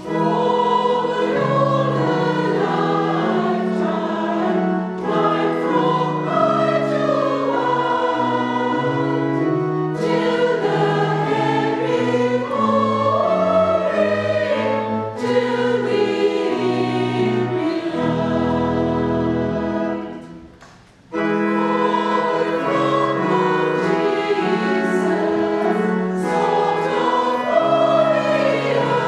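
Women's choir singing over sustained low chords. The singing breaks off briefly about two-thirds of the way through, then resumes.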